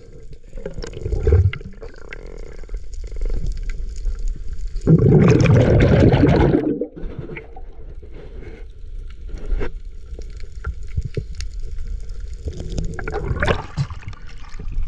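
Water sloshing and gurgling, with a louder rush about five seconds in lasting about two seconds, and scattered knocks.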